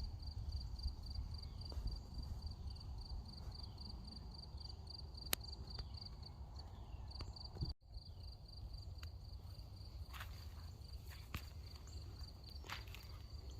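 Insects trilling steadily in a high, fast-pulsing tone, with a few short falling chirps in the first half and a low rumble of wind or handling underneath. The sound breaks off briefly about eight seconds in, and scattered clicks and light steps follow.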